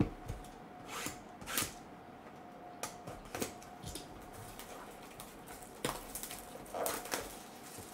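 Cardboard hockey card box being handled on a table: scattered light knocks, taps and rustles as it is picked up, turned over and set down, over a faint steady hum.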